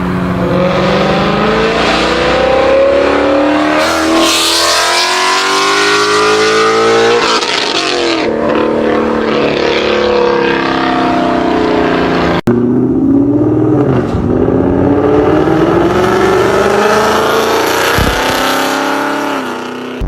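Supercharged car engines under hard acceleration, the supercharger whine climbing in pitch with the revs, in two clips with an abrupt cut about twelve seconds in.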